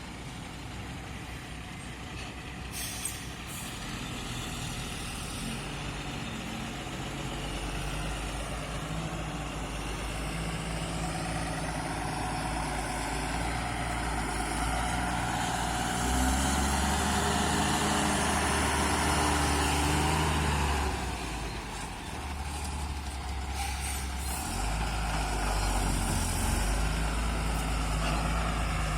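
Diesel engine of a JCB 3DX backhoe loader running under load while it loads soil, working harder for several seconds in the middle, easing briefly, then rising again. A couple of short hisses of air come near the start and near the end.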